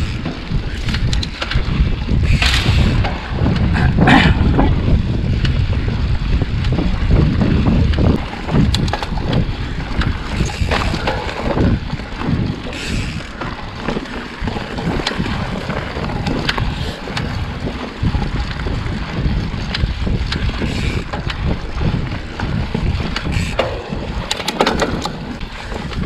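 Trek Fuel EX 8 full-suspension mountain bike riding a rough dirt trail: a steady rumble of tyres and wind on the microphone, with frequent short clicks and rattles from the bike.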